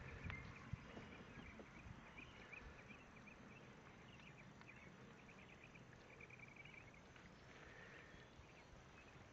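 Near silence: quiet outdoor ambience with faint, high, repeated chirping throughout and a couple of small knocks in the first second.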